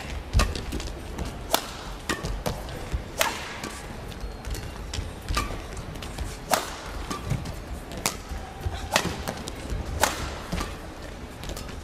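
Badminton rally: rackets striking the shuttlecock in sharp, crisp hits about once a second.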